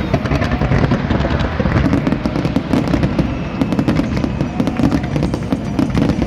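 Fireworks going off, many sharp pops and crackles in quick succession over a continuous low rumble.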